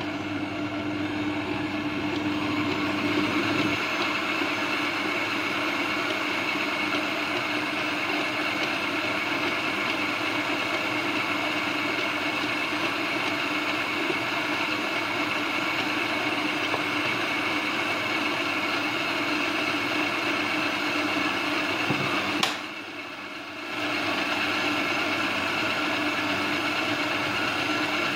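Electric stand mixer's motor running steadily, its dough hook kneading atta flour into roti dough. The sound drops away for about a second roughly three-quarters of the way through, then resumes.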